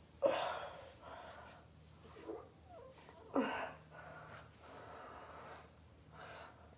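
A person breathing near the microphone, with two short, louder voiced exhales falling in pitch: one just after the start and one about three and a half seconds in, with softer breaths between.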